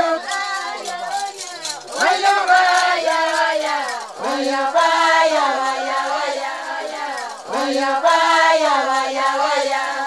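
Voices chanting a ceremonial song, in sung phrases that break off every two to three seconds.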